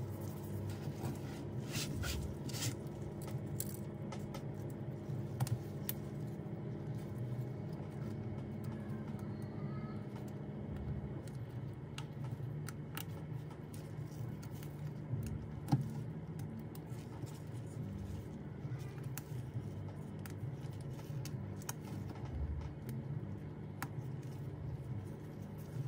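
Light clicks, taps and scraping from gloved hands handling an iPad screen panel and peeling its protective film, with one sharper tap a little past the middle, over a steady low hum.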